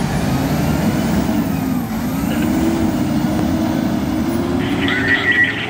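Fire engine's diesel engine accelerating away down the street, its drone rising in pitch and then holding. Near the end a higher, rapidly pulsing sound joins in.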